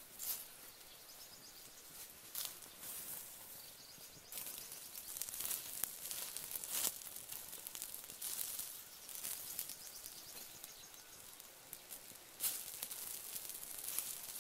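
Open wood fire crackling and hissing under chicken grilling on skewers, with irregular sharp snaps and pops.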